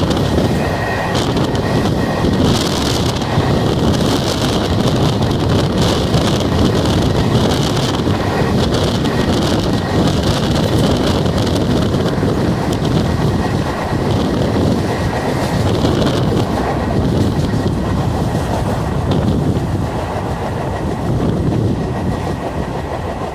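Chennai EMU suburban electric train running along the line, heard from its open doorway: a steady rumble of wheels on the rails with rushing air.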